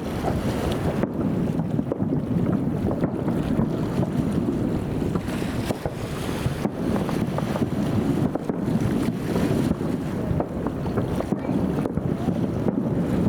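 Fireworks bursting in quick succession, their booms running together into a continuous rumble with scattered sharper cracks, while wind buffets the microphone.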